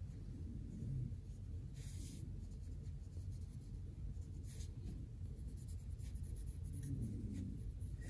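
Faint strokes of a pointed watercolor brush on textured watercolor paper, a few brief soft swishes over a low steady room hum.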